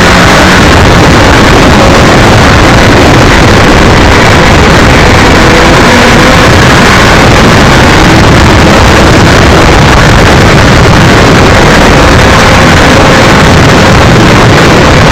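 BMW F650GS motorcycle ridden at speed: steady, very loud wind rush over the microphone, distorted, with the engine's note running underneath.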